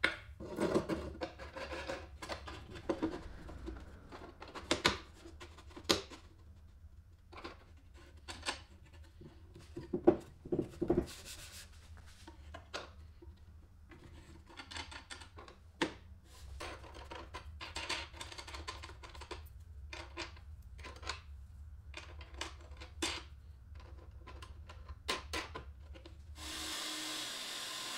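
MDF panels and metal hardware handled and fitted together by hand: scattered light knocks, clicks and wood rubbing on wood as the parts are set in place and wing nuts threaded onto bolts. Near the end a steady drill sound starts.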